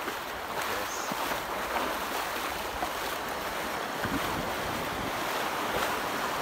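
Small waves breaking and washing onto a sandy beach, a steady rush of surf, with wind on the microphone.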